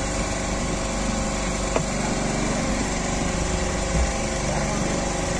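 Fishing boat's engine running steadily, an even hum, with a light click about two seconds in and a low thump near four seconds.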